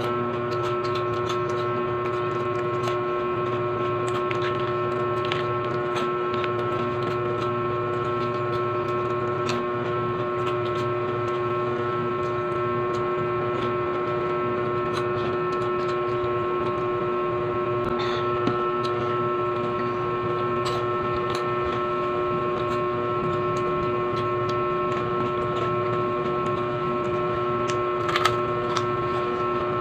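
A steady hum of several unchanging tones, with small crisp crackles of cheese-ring snacks and a foil snack bag being handled over it; a sharper crunch of a bite comes near the end.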